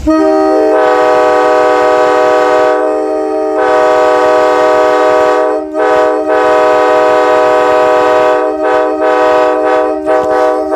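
Multi-chime train air horn blown in one long, loud chord, its notes coming in within the first second. Past the middle it is broken by a few quick stutters before sounding on.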